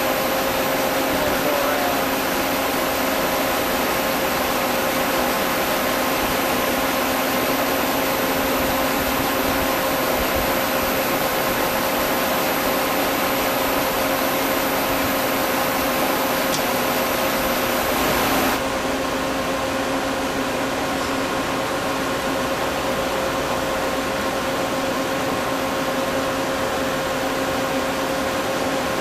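Friction stir welding machine running steadily: a constant mechanical hum with a few steady tones over even noise. About two-thirds of the way through, a high whine stops and the sound drops slightly in level.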